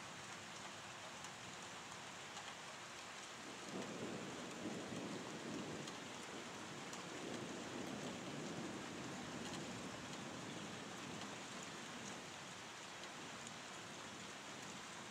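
Steady rain falling as a thunderstorm ends. About four seconds in, distant thunder rumbles in two rolling swells over several seconds, then fades back under the rain.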